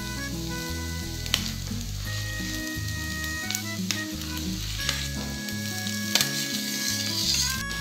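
Spiced vegetable stuffing sizzling in a non-stick kadai as mashed boiled potato is scraped in from a steel plate, with a few sharp clinks of metal on metal. Light background music plays throughout.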